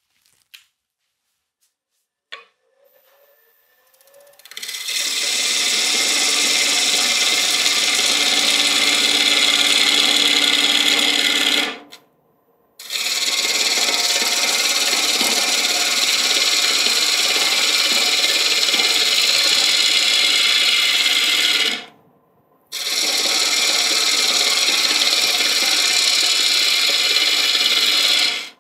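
Wood lathe spinning up about three seconds in, then a carbide roughing tool cutting into the outside of a spinning, still out-of-round bowl blank: a loud, steady scraping over the lathe's hum, in three long passes that each stop abruptly.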